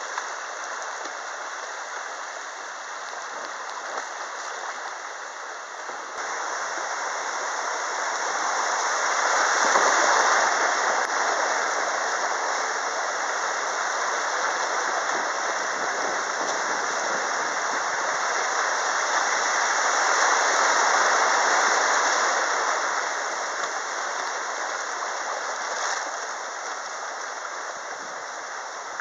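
River rapids rushing and splashing around a kayak running through them. The rush swells louder twice, about ten seconds in and again about twenty seconds in.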